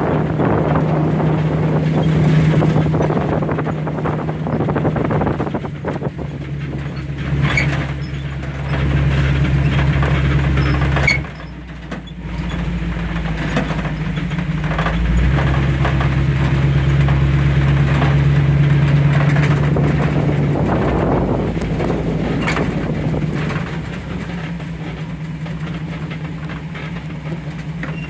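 Vehicle engine running steadily as it drives a rough off-road trail, with scattered clicks and knocks. The engine note drops away briefly about eleven seconds in, then picks up again.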